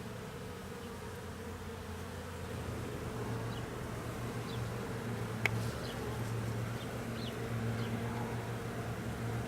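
Honeybees buzzing in a steady hum around an open hive, growing a little louder after a couple of seconds. A single sharp click about halfway through.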